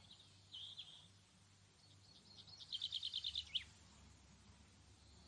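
Faint outdoor birdsong: a couple of short high chirps about half a second in, then a rapid trill of about nine notes near the middle that ends in a downward slur.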